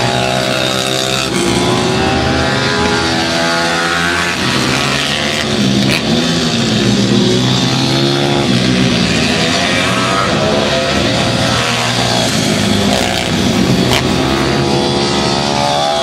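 Several 150 cc pit bike engines racing together, each revving up and dropping back through the corners so that their overlapping pitches keep rising and falling.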